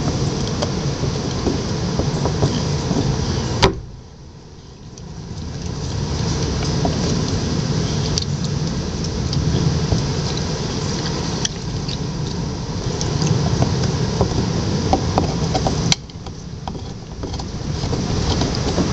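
A bulldog gnawing on a coconut: scattered sharp clicks and scrapes of teeth on the hard shell, over a steady low rumble that drops away suddenly about four seconds in and again near the end.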